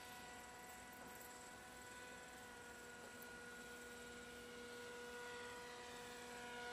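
Faint steady electrical hum made of several steady tones over low hiss, slowly growing louder.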